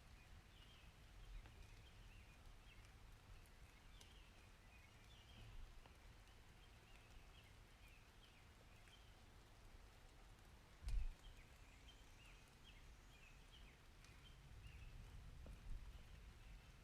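Faint outdoor ambience: a low rumble with scattered small high chirps throughout, and one sharp knock about eleven seconds in.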